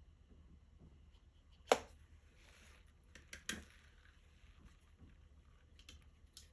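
A sharp knock about two seconds in, then a brief soft rustle, two more knocks close together and a few faint ticks: small hard objects such as a paintbrush or paint palette being handled and set down on a table.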